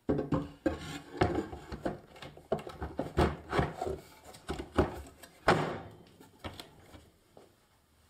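Keys and hammers of a salvaged Rhodes piano action played by hand with nothing for the hammers to strike, knocking and clacking in a quick irregular run. The loudest knock comes about five and a half seconds in, and the knocks thin out after about six seconds.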